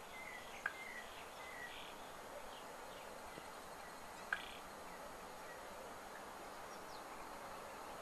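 Faint wetland ambience: a steady background hiss with soft bird twittering in the first couple of seconds, and two short sharp ticks, one under a second in and one about four seconds in.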